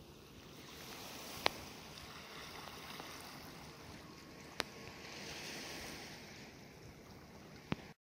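Small waves washing gently on a cobble beach, the sound of the water swelling and easing. Three short sharp clicks come at roughly three-second intervals.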